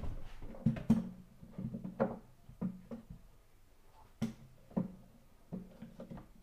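A series of irregular knocks and clunks on wood, about a dozen over a few seconds, each with a short hollow low ring, as timber, clamps and a pocket-hole jig are handled on a workbench frame.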